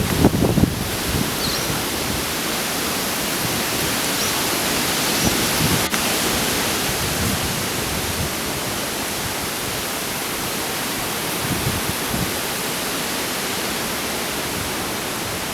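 Strong wind rushing through a tree's foliage as a steady, loud hiss, with brief wind buffeting on the microphone in the first second.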